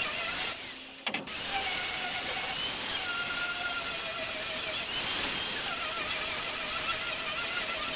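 Woodworking power tool running steadily with a high hiss and a wavering whine, dropping out briefly about a second in and then picking up again.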